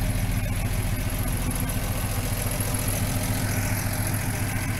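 Jeep Tornado 230 overhead-cam straight-six idling steadily and smoothly, fresh from a new timing chain and gears.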